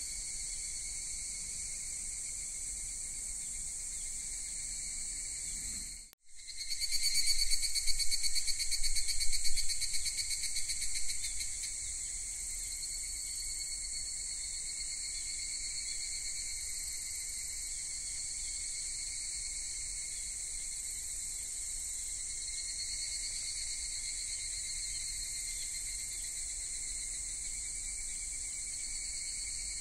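Crickets trilling in a steady, high-pitched chorus. About six seconds in the sound briefly cuts out, then a louder, rapidly pulsing trill stands out for about five seconds before the chorus settles back to its even level.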